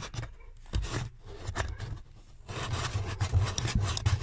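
A plastic trim fastener being twisted out by hand from the felt-covered cover under a VW Touran's glovebox: a scratchy, irregular rubbing of fingers and plastic against the felt, with small clicks.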